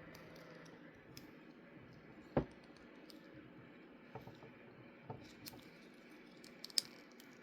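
Faint clicks and ticks of plastic snap-fit model kit parts being handled and fitted together, with one sharper click about two and a half seconds in and a few lighter ticks later.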